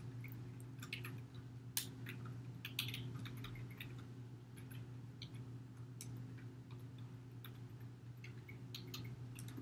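Faint, irregularly spaced clicks of a computer keyboard and mouse as code is typed and edited, over a steady low hum.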